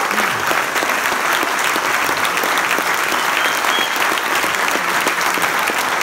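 Large audience applauding, many people clapping steadily together.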